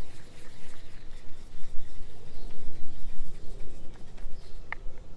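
Uneven low rumble of wind buffeting the microphone outdoors, with a single short high chirp near the end.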